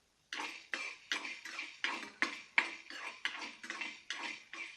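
Peppercorns being stirred with a spoon as they dry-roast in a kadai: a steady run of short scraping strokes against the pan, about three a second.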